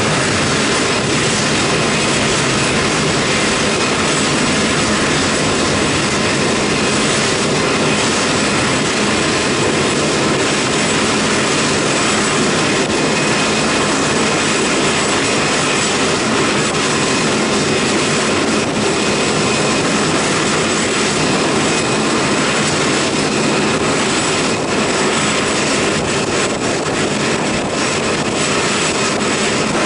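Airbus A380's four Engine Alliance GP7200 turbofans running at taxi power as the airliner rolls past: a steady, loud jet rush with a faint high whine.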